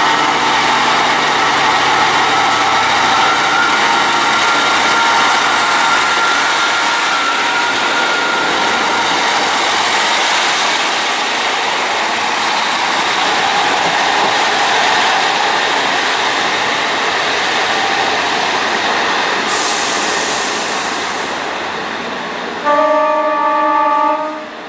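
A diesel multiple unit running past close by: a steady rush of wheels on rail with a faint whine, fading away in the last few seconds. Near the end a train horn sounds one steady note for about a second and a half.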